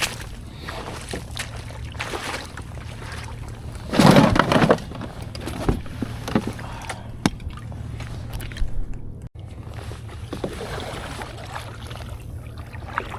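Sounds of handling gear in a sit-on-top kayak on calm water: scattered light knocks and clicks against the plastic hull, with one louder rustling, knocking burst about four seconds in.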